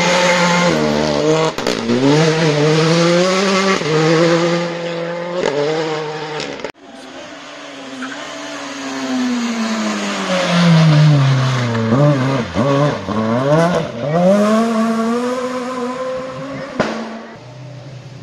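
Two rally cars passing one after the other on a gravel stage. The first engine revs hard and shifts quickly up and down. After a sudden cut, a Renault Clio rally car's engine falls in pitch as it brakes into the bend, blips through several quick downshifts, then climbs again as it accelerates away and fades.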